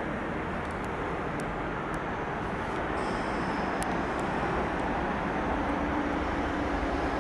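Nissan GT-R's twin-turbo V6 idling steadily, a low, even engine sound heard from the front of the car.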